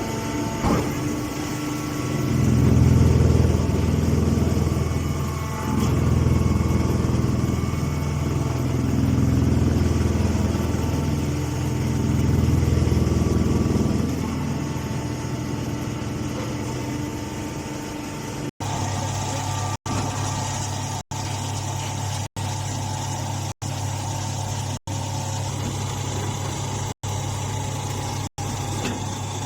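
Engine-driven straw baling machinery running, swelling louder and easing off in several long surges, then running steadily with brief cut-outs in the sound about once a second.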